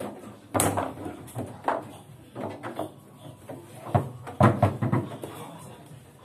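Foosball play: sharp clacks and knocks of the ball striking the plastic men and the rods banging in the table, at irregular intervals, thickest and loudest about four to five seconds in.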